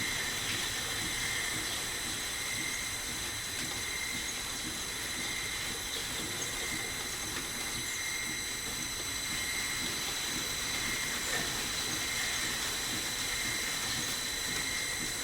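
Lathe running steadily, a high whine over an even hiss, the whine swelling and fading about once every second and a half.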